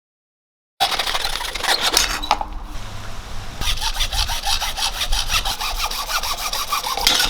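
A saw cutting through 2-inch pipe with quick repeated back-and-forth strokes, starting about a second in and cutting off abruptly at the end.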